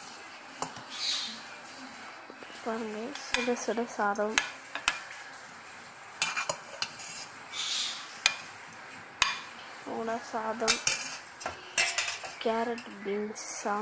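A spoon clinking and scraping against a plate as cooked rice is served onto it: irregular sharp taps and clinks with a few short scrapes.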